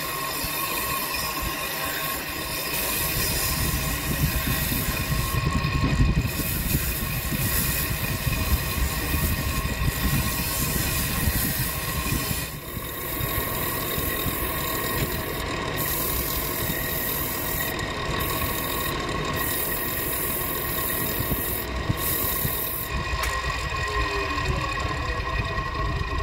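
Wood lathe motor running steadily with a constant hum and whine while sandpaper is held against the spinning wooden bowl, adding a high hiss that drops out briefly a few times. The sound dips for a moment about halfway through.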